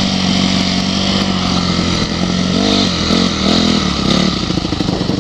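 Motocross bike engine running under the rider, heard close up from goggles worn by the rider, over a steady hiss. It holds one pitch, then revs up and back down three times in quick succession from about halfway in.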